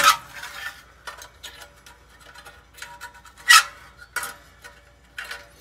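Small metallic clicks and scraping as a round thermostat is fitted onto the sheet-metal housing of a dryer heating element and handled with pliers, with one sharp metal clack about three and a half seconds in.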